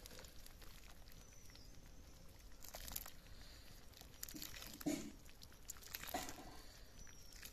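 Egg and mung dal curry bubbling in an iron kadai, stirred with a ladle that lifts and pours it back: a few soft splashes and sloshes over a faint simmer.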